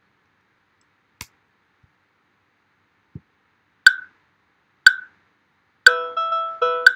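Currymeter software metronome starting up at 60 beats a minute: two sharp count-in clicks a second apart, then from about six seconds in a sharp click on each beat with quick runs of short pitched electronic notes between them, sounding quintuplet cells over alternating groups of three and four sixteenth notes.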